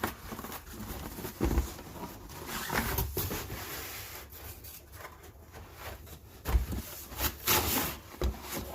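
Cardboard packaging being opened and a flexplate handled: rubbing and scraping of cardboard, with several sharp knocks, the loudest in the second half.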